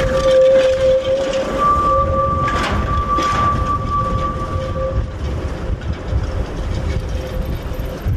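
Flatbed works tram rolling slowly along curving track: a continuous low wheel rumble with a steady high squeal from the wheels on the curve. The squeal weakens about halfway through while the rumble goes on.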